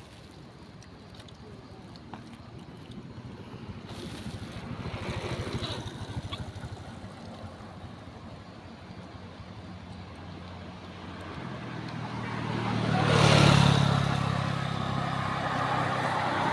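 A motor vehicle engine approaches and passes, rising to its loudest about 13 seconds in, then holds at a steady hum; a smaller swell of noise comes earlier.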